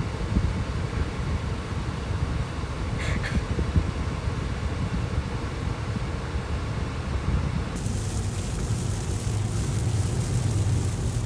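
Steady road and wind noise of a car driving at speed, a low rumble throughout, with extra hiss coming in about two thirds of the way through.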